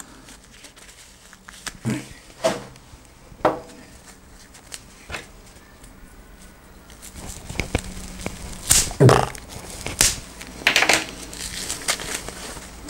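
Packaging being unwrapped by hand from small bottles: scattered rustling and crinkling, with a few separate crackles early and a denser run of louder crinkles about eight to eleven seconds in.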